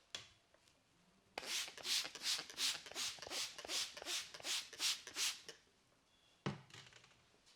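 Barber's hands rubbing briskly over the head in a massage, about three strokes a second for some four seconds. A single thump follows about a second later.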